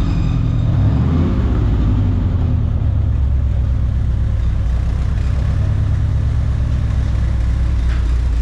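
1953 GMC 100 pickup's engine running, its speed easing down in about the first second and then idling steadily with a low, even rumble.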